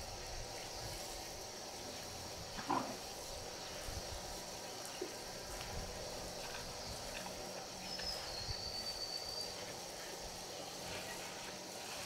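Steady high insect chirring, with one brief louder call about three seconds in and a thin high whistling tone a little after eight seconds.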